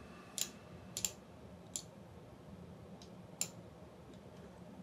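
About five faint, sharp clicks of a computer mouse, irregularly spaced, over a faint steady low room hum.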